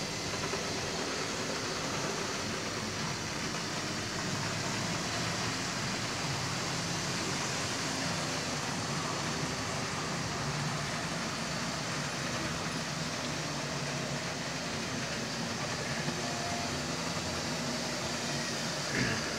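Model railway trains running: a steady whir and rumble from the motors of model Class 47 and Class 37 diesel locomotives and their wagons rolling on the track, with a short knock near the end.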